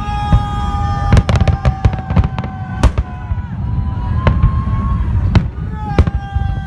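Festive fireworks salute: many sharp bangs of bursting shells in quick, irregular succession over a continuous low rumble. A held high whistle-like tone sounds over the bangs near the start and again near the end.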